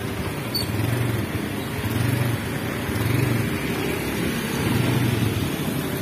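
Motor vehicle engine running, its low hum rising and falling about once a second, over a steady hiss of tyres on a wet road.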